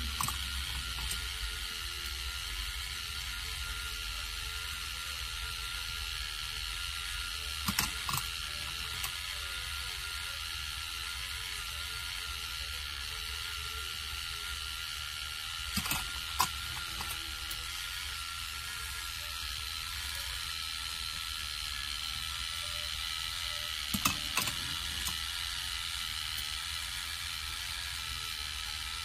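K'nex ball machine running: its battery motor and plastic gears drive the chain lift with a steady whine and ratcheting rattle. Pairs of sharp plastic clacks come about every eight seconds as the ball knocks through the track.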